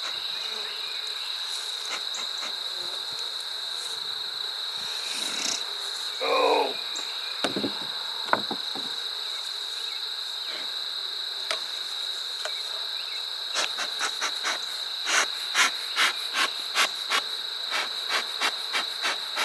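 Steady high-pitched chirring of insects, with a quick run of sharp clicks in the last six seconds.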